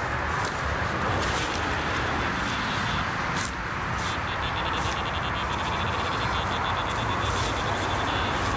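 Footsteps and rustling through tall grass and reeds over a steady hiss. In the second half a fast, high-pitched pulsing runs for about four seconds.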